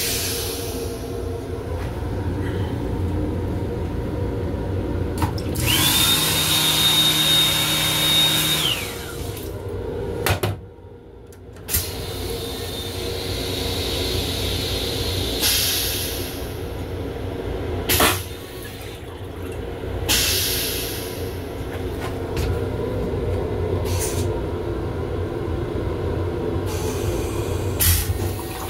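Long Island Rail Road M7 railcar running, heard inside its restroom: a steady rumble and hum broken by several bursts of hissing and a few sharp clicks. The longest hiss, carrying a steady high whistle, starts about six seconds in and lasts about three seconds.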